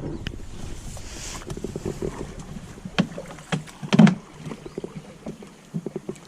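Scattered knocks and bumps in a small river fishing boat, the loudest about four seconds in, over a low background of water and boat noise.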